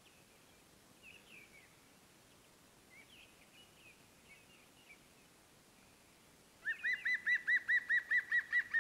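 Wild birds chirping faintly, then, a little over two thirds of the way in, a loud rapid run of about a dozen piping notes, about six a second.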